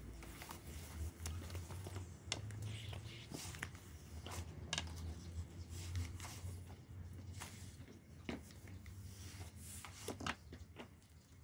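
Rubbing and scattered light clicks of a long thin wooden rolling pin (oklava) rolling out sheets of dough on a wooden board, over a low steady hum.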